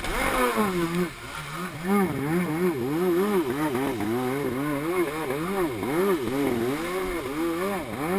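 Stand-up freestyle jet ski's engine revving up and falling back over and over in quick, even cycles, about two to three a second.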